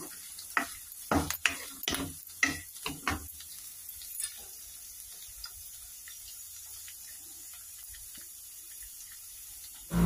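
Onions, garlic, curry leaves and whole tomatoes sizzling in hot oil in a pan. A spatula scrapes and stirs through them several times in the first three seconds or so, then the sizzle goes on steadily.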